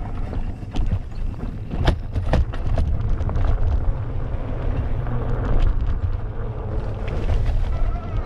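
Mountain bike riding fast over a dirt singletrack: a steady low rumble of wind on the microphone and tyres on the ground, broken by frequent sharp knocks and rattles as the bike hits bumps.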